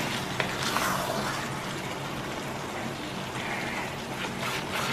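Thick liver and coconut-milk gravy sizzling and bubbling as it reduces in a hot nonstick frying pan, stirred with a spatula that scrapes and taps against the pan a few times.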